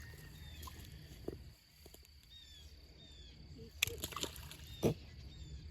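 Waterside outdoor ambience: high, short falling chirps from wildlife repeat every second or so over a steady low rumble. A few sharp knocks with a sloshing of water come about four and five seconds in.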